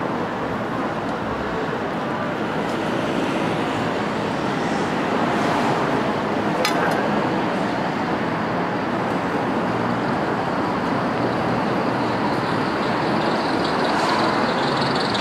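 Busy city street ambience: steady road traffic noise, with one sharp click about halfway through.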